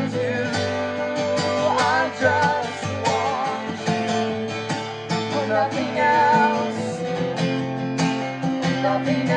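Acoustic guitar strummed steadily under a woman singing a slow worship song, her voice holding long, wavering notes without clear words.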